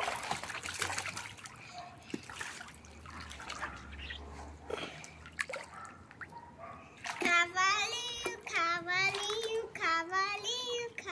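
Pool water splashing and trickling as a child moves about in a small pool. About seven seconds in, a girl's voice begins a wordless, wavering sung tune.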